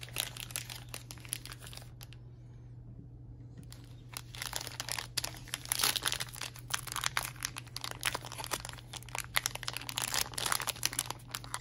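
Plastic foil trading-card pack wrapper crinkling and crackling as it is handled. The crackling thins out about two seconds in, then grows denser and louder from about five seconds on as the pack is picked up and worked at to open it.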